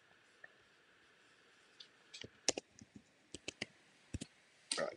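Light, scattered clicks of a computer keyboard and mouse, coming in small clusters and ending in a quicker run of clicks.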